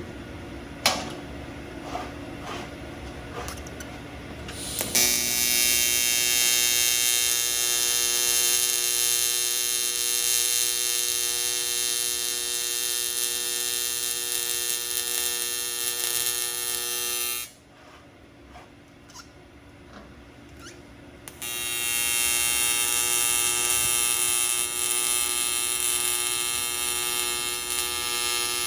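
AC TIG welding arc buzzing steadily while aluminum is welded, in two runs: the first starts about five seconds in and stops after about twelve seconds, and the second starts about four seconds later. A few sharp knocks come before the first run.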